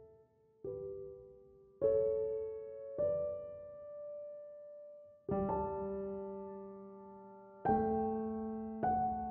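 Slow, soft solo piano music: single notes and chords struck every second or two, each left to ring and fade.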